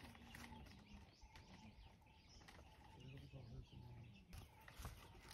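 Quiet outdoor ambience with faint bird chirps and a few soft clicks near the end.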